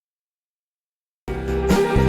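Silence, then instrumental music cuts in suddenly just over a second in and plays at full level.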